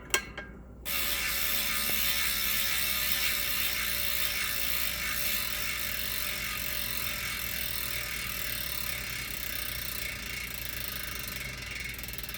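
DT Swiss 240 bicycle hub with 36-point star ratchet engagement freewheeling: a dense, high-pitched buzz that starts suddenly about a second in as the hub is spun and slowly fades as it coasts. The hub is new, its lube not yet broken in; the buzz grows louder as the lube breaks down.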